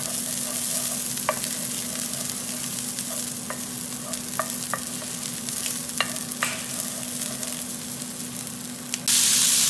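Chopped garlic sizzling in oil in a nonstick frying pan while a wooden spatula stirs it, clicking now and then against the pan. About nine seconds in, the sizzle suddenly becomes much louder.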